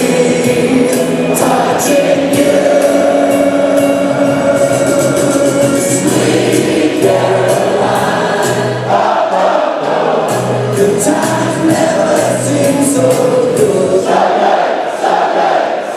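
Music with a choir singing long held notes over a band, with a steady ticking of cymbals.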